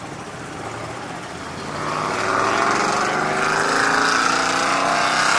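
A motor vehicle engine revving up. It gets loud about two seconds in and climbs steadily in pitch.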